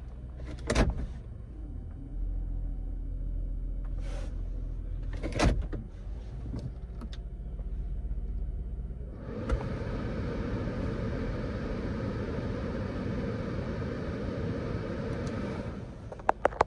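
The Lexus ES 350's 3.5-litre V6 idling, heard from inside the cabin, with a couple of sharp clicks from the dash controls. About nine and a half seconds in, the climate-control blower comes on as the air conditioning is switched on: a steady rush of air from the vents that cuts off near the end, followed by a few quick clicks.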